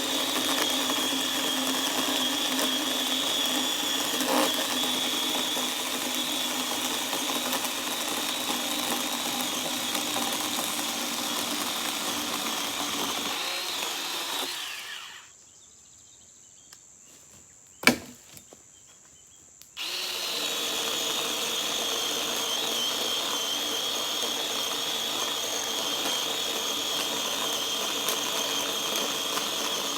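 Chainsaw running and cutting wood, in two long stretches with a stop of about five seconds in the middle, broken by one sharp knock.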